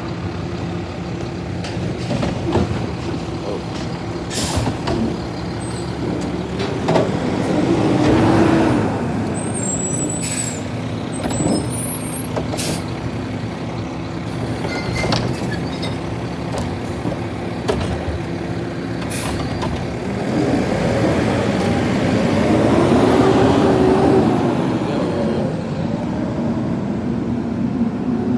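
Automated side-loader recycling truck: its diesel engine runs steadily while the hydraulic arm lifts, dumps and sets down a wheeled recycling cart, with several sharp clanks and air hisses. Near the end the engine revs up and falls back as the truck pulls away.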